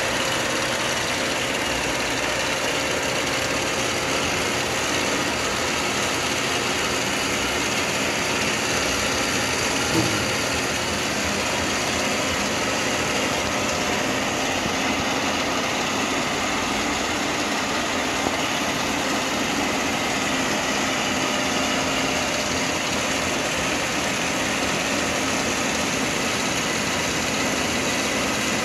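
Radial arm drill press running steadily: an even mechanical hum from its motor and gearing, with a few faint constant tones in it. A single click comes about ten seconds in.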